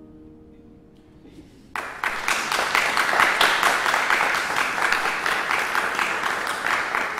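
The last piano chord fades away, then audience applause breaks out suddenly just under two seconds in and keeps going strongly, many hands clapping at once.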